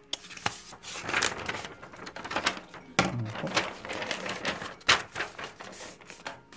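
Sheets of paper being handled and rustling, with a few sharp taps and clicks, the loudest about three seconds in and near five seconds in.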